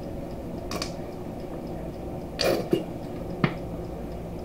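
Plastic squeeze bottle of yellow mustard being squeezed into a bowl: two short wet, sputtering squirts, about a second and two and a half seconds in, and a sharp click shortly after the second.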